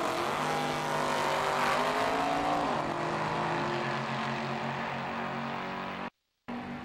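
Two drag-racing cars, a Chevy pickup and a red car, launching off the start line and accelerating down the strip. The engines rise in pitch for about two seconds, then run on at a steady note as they pull away. The sound drops out completely for a moment near the end.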